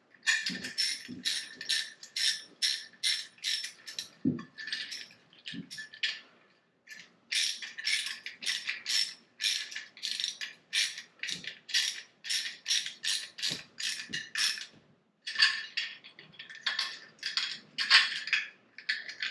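Hand ratchet worked in quick short strokes, about three or four a second, with two brief pauses. It is tightening the fastening hardware of a Mantus stainless rail clamp until snug.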